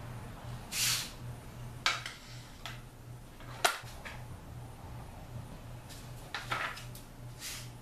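Sword blade swishing and sliding back into its scabbard, with a few sharp clacks, the loudest about three and a half seconds in as the sword is sheathed. More brief swishes and rustles near the end as the hand goes back to the hilt, over a faint steady low hum.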